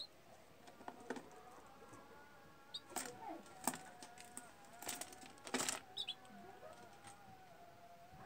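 A pair of budgerigars chattering softly: a faint warbling broken by a few short high chirps and several sharp clicks and scratches, the loudest of them between about three and six seconds in.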